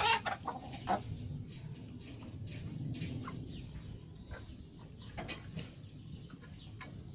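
Chickens clucking in short, scattered calls, with a cluster of sharp knocks in the first second over a low rumble.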